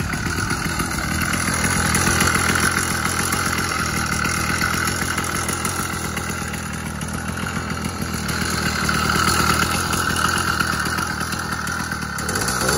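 Seeutek 80cc two-stroke bicycle engine kit idling steadily with a fast, even firing pulse, swelling slightly twice. It runs on a 32:1 fuel-oil premix that the owner thinks is a little rich.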